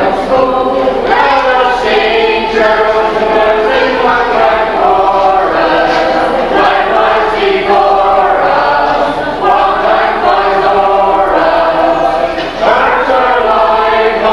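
A group of people singing together, holding long sung notes that change pitch every second or two.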